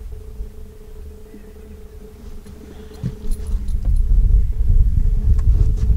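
Boat motor running with a steady hum under a low rumble that grows louder about halfway through, with a few light clicks.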